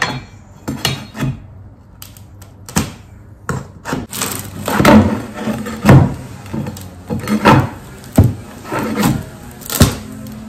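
A series of irregular knocks and thumps on wood, loudest around the middle.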